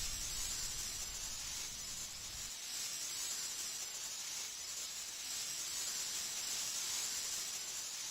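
Steady hissing sound effect, strongest in the high range, with a low rumble underneath that drops away about two and a half seconds in.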